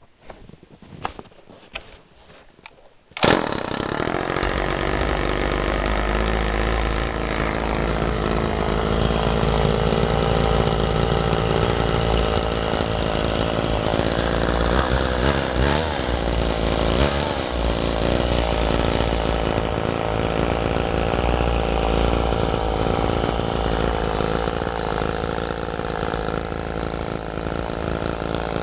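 Homelite Super 2 two-stroke chainsaw starting up about three seconds in, after a few faint knocks, then running steadily.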